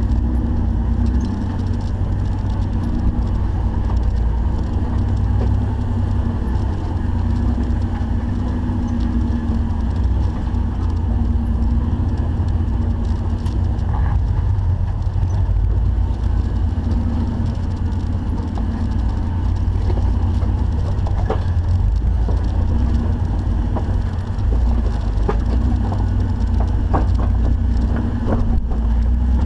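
Off-road Jeep running on the trail: a steady, low engine and drivetrain rumble, with scattered short knocks and clicks that come more often in the second half.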